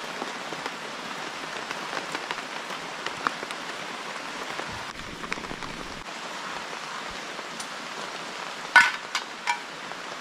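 Steady rain falling, with scattered sharp drop ticks. Near the end comes a loud sharp knock, then two lighter ones in the next second or so.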